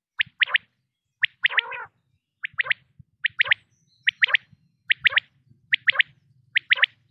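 Male common quail giving its three-note 'wet-my-lips' call over and over, about once a second. Each phrase is a short note followed by two quick ones.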